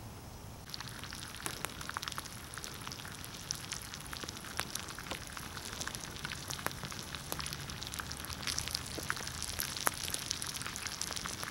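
Fish and bannock dough frying in hot oil in a cast iron skillet: a steady sizzle with frequent sharp crackles and pops, setting in about a second in.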